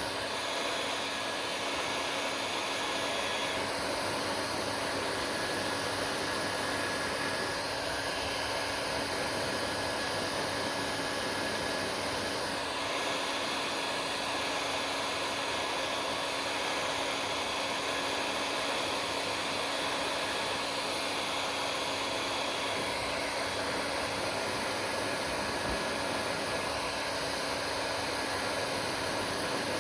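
Hair dryer running steadily: an even rush of blown air with a faint, steady motor whine.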